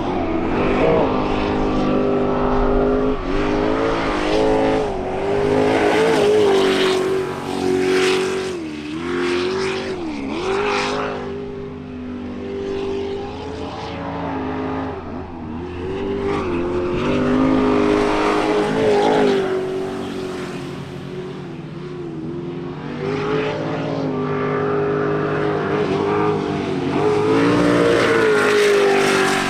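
Sprint boat's racing engine at full power through a timed run, its revs rising and falling again and again as it takes the turns, with louder surges several times.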